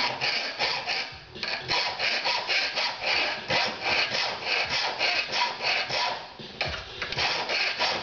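Hand file rasping back and forth across a metal workpiece held in a bench vise, at about four quick strokes a second, with short pauses about a second in and again near the end.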